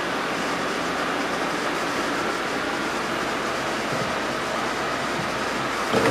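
Steady rushing noise, typical of an aquarium filter running beside the water. Right at the end a splash begins as a cat drops into the water-filled tank.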